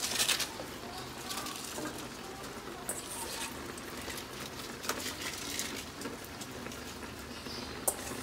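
Fish broth simmering in a wok, with soft crackles and rustles as handfuls of pechay leaves are dropped in. A single sharp click near the end.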